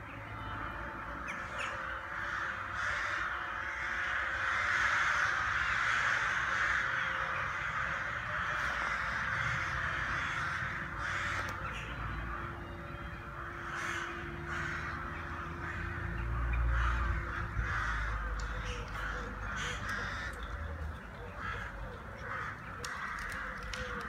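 Crows cawing, many calls overlapping into a steady chorus, with a low rumble partway through.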